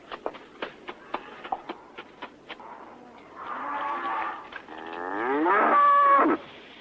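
Cattle lowing: one moo, then a louder, longer moo that rises in pitch and cuts off sharply. Before them comes a run of sharp clicks, about four a second.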